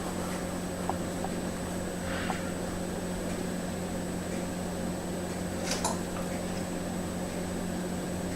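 Steady low hum with a thin, high steady whine above it, broken by a few faint clicks and a short rustle about six seconds in.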